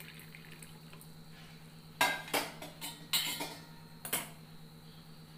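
A spoon clinking and scraping against a stainless steel bowl of water, in a quick cluster of about five clinks starting about two seconds in, as something is stirred in. A steady low hum runs underneath.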